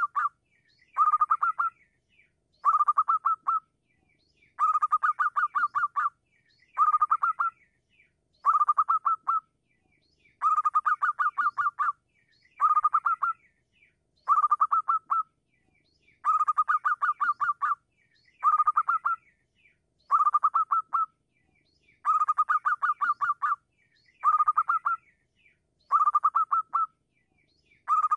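Zebra dove calling: short bursts of rapid, clipped staccato notes, repeated about every two seconds.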